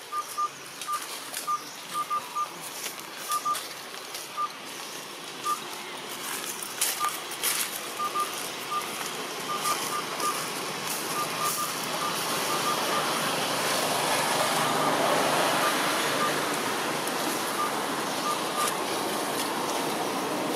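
Outdoor ambience: short, high peeps all at one pitch, repeating irregularly, with a few faint clicks. A steady rushing noise swells in about two-thirds of the way through.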